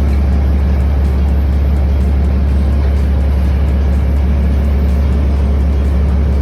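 Heavy diesel engines of a dump truck and a Cat 325 excavator running at close range while the excavator loads dirt into the truck: a loud, steady, deep drone.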